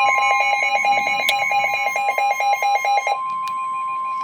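NOAA Weather Radio tornado warning alert: the steady warning alarm tone, with a fast pulsing electronic beep over it at about six beeps a second. The beeping stops about three seconds in while the steady tone carries on.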